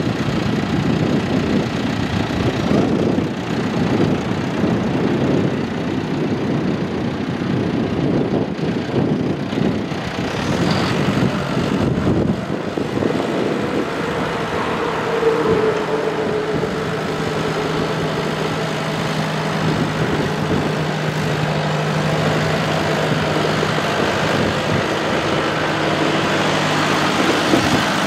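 John Deere 6140D tractor's four-cylinder turbocharged diesel engine running as the tractor drives slowly around. From about halfway a steady engine hum comes through clearly.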